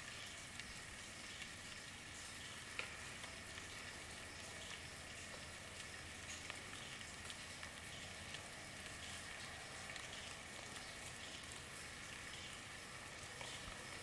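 Recorded rainfall: a steady hiss of rain with many small scattered drop ticks, and one sharper tick about three seconds in.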